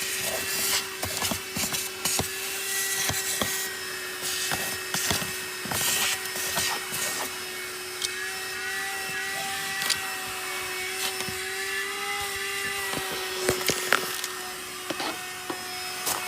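Handheld 120-watt 12-volt car vacuum cleaner running with a steady whine and a rush of air. Scattered clicks and scraping sounds come through as the nozzle rubs over a surface.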